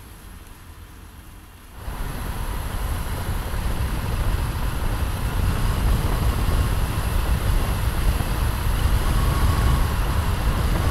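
Heavy truck and SUV approaching on a road: steady tyre and road noise with a low rumble. It starts suddenly about two seconds in, after a faint opening, grows louder as they come nearer, and cuts off abruptly.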